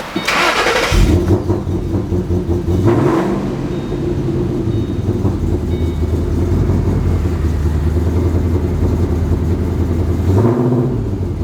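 2008 Ford Mustang engine starting about a second in and then idling steadily, revved up briefly twice, once about three seconds in and again near the end.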